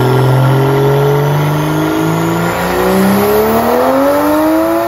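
Toyota GR Supra's BMW B58 turbocharged inline-six pulling at full throttle on a chassis dyno, its pitch climbing steadily as the revs rise through the gear.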